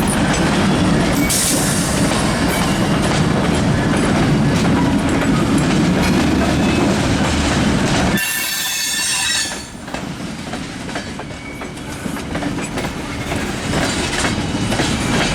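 Two EMD SD75I diesel locomotives rumble slowly past, their 16-cylinder two-stroke engines under load. About eight seconds in the engine rumble drops away suddenly and a brief high wheel squeal follows, as the cars take the curve of the connector track. Then the tank car wheels click over jointed rail.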